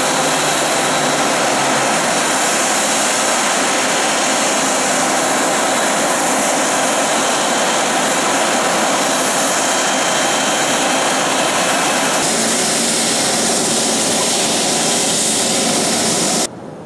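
Rolls-Royce Trent 892 turbofan engines of a Boeing 777-300 running steadily, a loud jet noise with a steady high fan whine. The sound changes abruptly about twelve seconds in and drops sharply just before the end.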